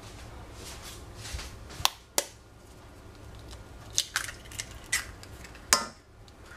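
Eggs being cracked on a stainless steel saucepan: several sharp taps and cracks of shell on the metal, a pair about two seconds in and more in the second half, the last the loudest.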